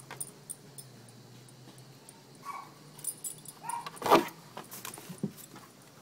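Weimaraner's collar tags jingling and clicking lightly as she mouths and chews a cicada on a wooden deck, with a sharp knock about four seconds in.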